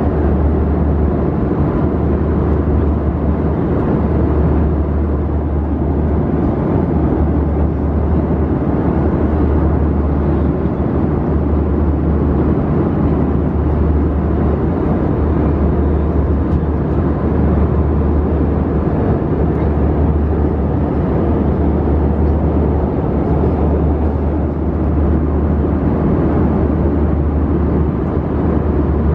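Steady cabin noise of an Airbus A320-200 airliner in flight: an even, low drone of jet engines and airflow with a deep hum underneath.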